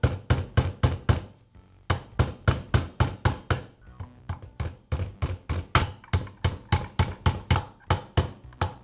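Small hammer tapping a roll pin into the metal trigger-valve housing of a Porter-Cable roofing nailer: quick, even taps about four to five a second, with two short pauses.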